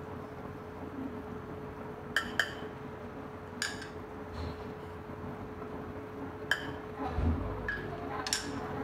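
Slotted steel spatula clinking against the side of a metal cooking pot of simmering dal as it is stirred: a few sharp, separate clinks, two of them in quick succession a little over two seconds in. A steady faint hum runs underneath.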